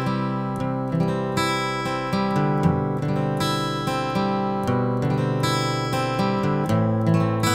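Background music on acoustic guitar, plucked notes and chords.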